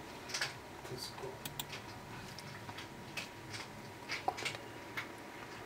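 Quiet room with faint, irregular clicks and taps, a dozen or so scattered through the few seconds, over a faint steady tone.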